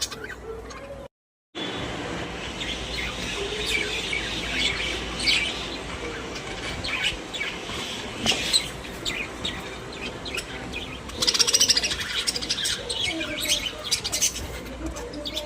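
Pet budgerigars chirping and warbling in a busy, continuous chatter, with the loudest stretch of rapid chirping a little past the middle. The sound cuts out completely for about half a second around a second in.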